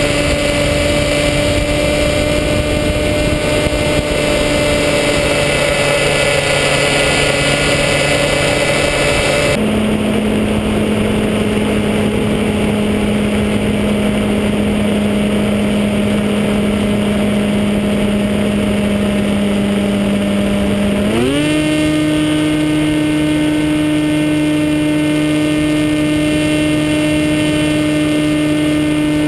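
Electric motor and propeller of a HobbyKing EPP-FPV radio-controlled plane droning in flight, heard from the on-board camera with a rush of airflow. The pitch drops suddenly to a lower steady note about ten seconds in as the throttle comes back. It rises again in a smooth glide a little after twenty seconds in, as power is added.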